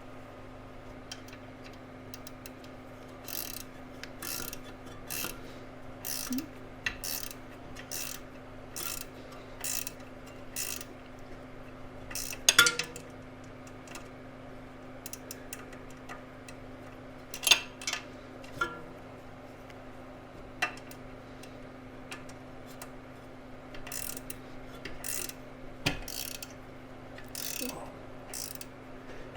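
Flex-head ratcheting wrench clicking in quick runs of strokes as bolts are tightened, with two sharper metal clinks of the tool against metal partway through.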